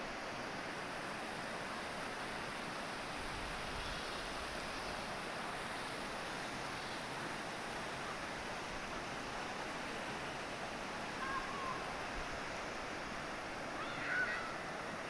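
Steady rushing noise of flowing water, even and unbroken, with a couple of faint short chirps in the last few seconds.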